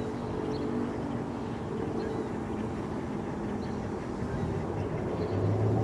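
Steady mechanical hum with several tones drifting in pitch over a rumbling noise background; a deeper hum swells near the end.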